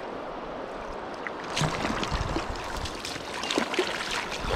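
Steady flow of a shallow river, then from about a second and a half in, choppy splashing as a hooked rainbow trout thrashes at the surface and is scooped into a landing net.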